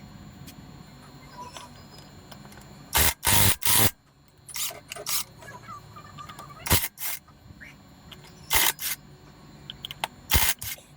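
Sharp knocks and clicks in short clusters, the loudest group about three seconds in, from tools and parts being handled while a 100cc motorcycle engine is taken apart, over a low steady hum.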